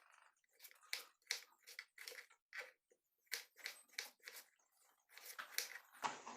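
Kitchen knife cutting tomatoes on a chopping board: a run of crisp cuts, about three a second, with a brief pause about halfway through.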